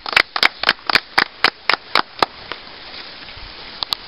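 A small group clapping hands together in a steady rhythm of about four claps a second, applause closing a group prayer; the clapping stops a little over two seconds in.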